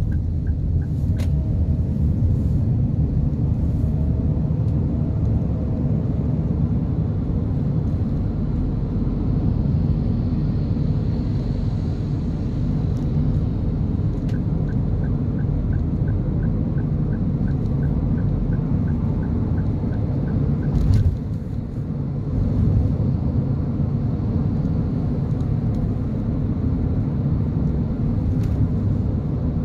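Cabin noise of a 2022 Toyota Avanza 1.3 CVT on the move: a steady low rumble of tyres and engine. A regular ticking, about three a second, runs briefly at the start and again for about six seconds midway; this is the turn-signal indicator.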